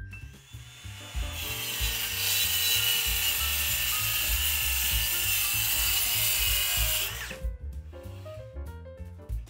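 Milwaukee circular saw cutting through plywood: it comes up to speed about a second in, runs steadily through the cut for about six seconds, then stops. Background music with a bass line plays throughout.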